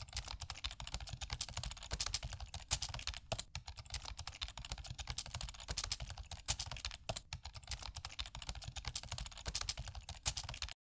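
Rapid typing on a keyboard: a continuous, uneven patter of key clicks that cuts off suddenly near the end.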